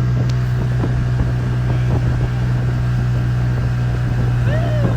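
Outboard motor of a small aluminium tinnie running steadily at constant speed, a loud even hum, with scattered short knocks.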